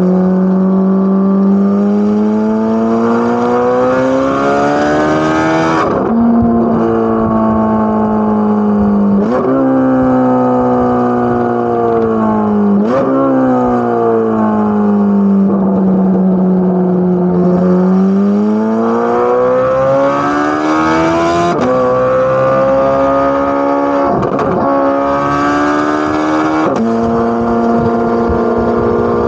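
Corvette C8 Z06's flat-plane-crank 5.5-litre V8 accelerating hard, its exhaust note climbing in pitch and dropping sharply at each quick upshift. About halfway through it eases off and the pitch falls for a few seconds, then it pulls again through three more rapid upshifts.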